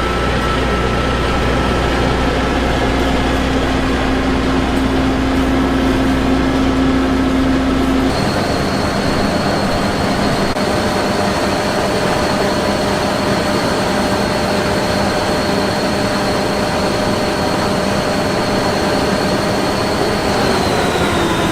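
Combine harvester engine and machinery running steadily. The sound changes abruptly about eight seconds in, after which a high whine holds steady and then drops in pitch near the end.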